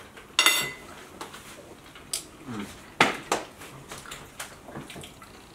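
Forks and cutlery clinking against plates as several people eat, a few sharp clinks with the loudest about half a second in and another around three seconds in.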